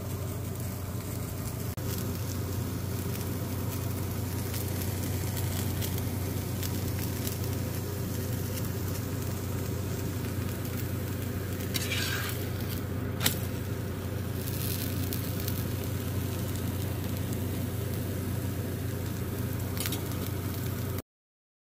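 Potato-and-vegetable paratha sizzling steadily in a nonstick frying pan, over a steady low hum. There is a single sharp click about 13 seconds in, and the sound cuts off abruptly near the end.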